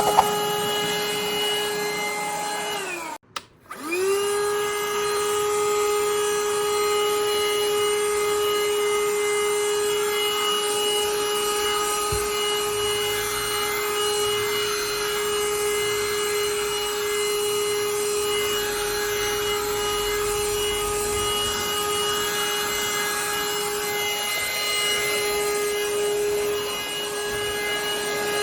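Parkside PHSSA 20-Li cordless handheld vacuum cleaner running with a steady high whine. About three seconds in the motor is switched off and winds down, then is switched straight back on and runs steadily again.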